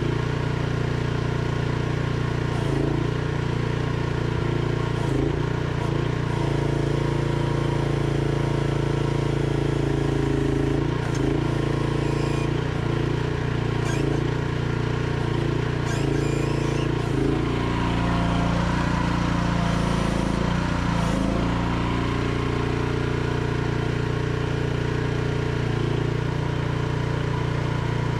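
Mini excavator's engine running steadily while the bucket digs into cattails. Its note dips briefly many times, most around two-thirds of the way through, as the hydraulics work.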